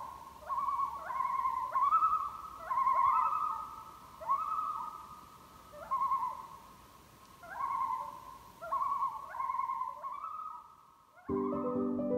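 Common loons calling across the lake: overlapping wavering, yodel-like calls that each swoop up at the start, about one a second. Gentle mallet-and-piano music comes in near the end.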